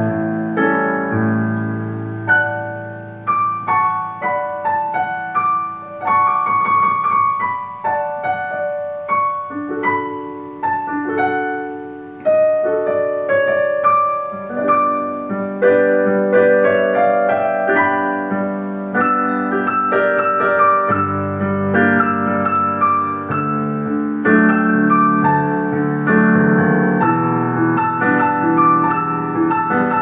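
Dexibell VIVO H3 digital piano played with both hands through its own built-in speakers, on its romantic grand piano voice: a continuous flowing piece of chords and melody. The playing grows fuller and louder about halfway through.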